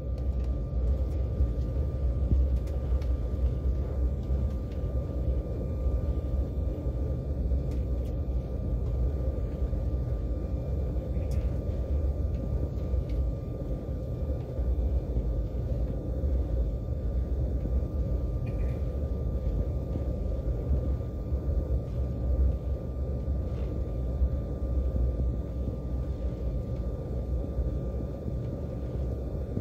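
Inside the cabin of an Airbus A320-family airliner rolling on the ground before takeoff: the jet engines and the roll make a steady low rumble, with a thin steady whine above it and a few faint ticks.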